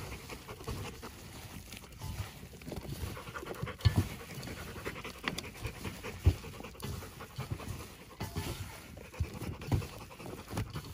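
A dog panting close by, mixed with the wet squelching of gloved hands kneading raw ground meat and oatmeal in a stainless steel bowl.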